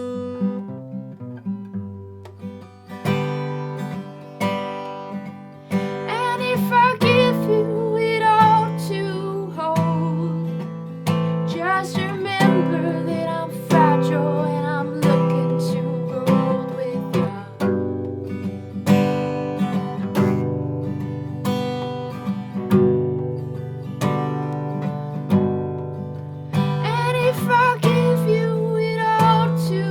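Acoustic guitar playing an instrumental passage of a folk love song: chords picked or strummed about once a second, with a gliding melody line over them.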